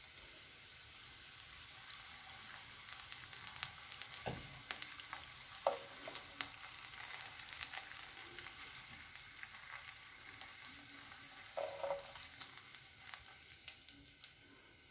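Bacon strips sizzling faintly in oil in a frying pan, with scattered small crackles. A few short utensil knocks as pieces are lifted out onto the plate.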